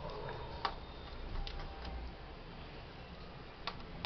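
Laptop parts clicking and tapping as they are handled during disassembly: a few short sharp clicks, the clearest about half a second in and near the end, over a low steady hum.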